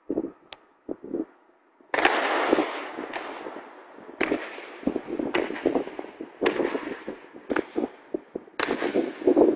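Honour guards' boots stamping on a marble floor in a slow ceremonial march, one sharp stamp about every second. Each stamp echoes for a long moment around the stone hall.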